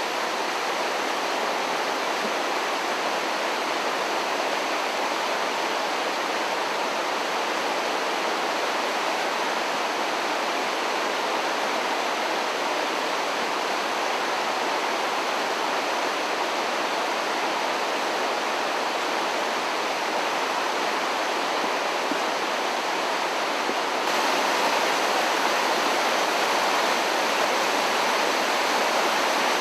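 Fish Creek in flood: a steady rush of fast-moving floodwater, stepping up a little louder near the end.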